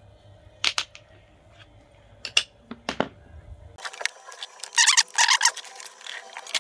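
Plastic knocks and clicks from handling a Zojirushi rice cooker's casing as it is gripped and turned over, with a short clattering, scraping spell about five seconds in.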